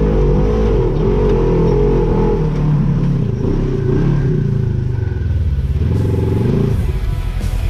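Side-by-side UTV engine running under the rider, its revs rising and falling over and over on a steep dirt trail, with some clatter from the machine. The rising and falling engine note gives way to a steadier sound about seven seconds in.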